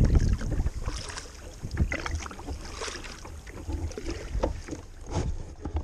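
Double-bladed kayak paddle dipping and pulling through the water in irregular splashing strokes, with wind rumbling on the microphone, heaviest at the start.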